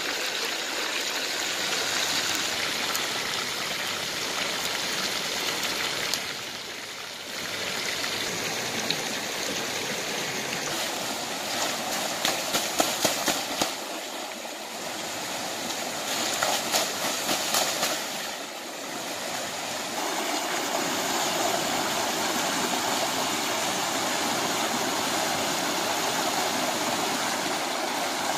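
Shallow rocky mountain stream rushing steadily over stones and small rapids. Two short spells of splashing stand out about halfway through, as a person splashes water while wading in the stream.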